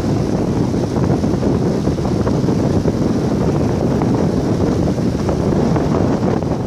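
Wind buffeting the microphone of a camera carried on a moving road bicycle: a steady, loud, low rumble.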